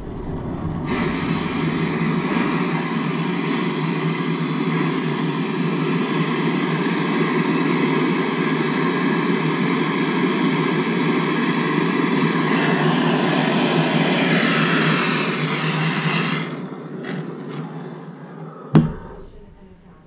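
Handheld gas torch burning with a steady hissing rush as it heats a copper pipe joint for soldering. The flame dies away about 16 seconds in, and a single sharp knock comes near the end.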